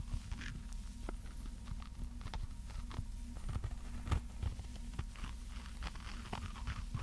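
Irregular light taps and clicks of small objects being handled, over a steady low hum.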